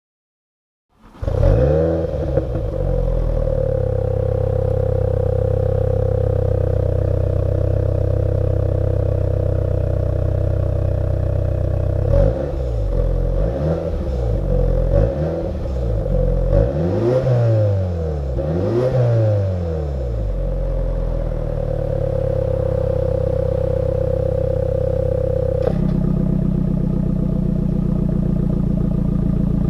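MINI John Cooper Works turbocharged four-cylinder engine starting about a second in with a brief flare, then idling through its sports exhaust. In the middle it is given about five quick throttle blips, each rising and falling in pitch, before settling back to idle; near the end the idle note drops and changes.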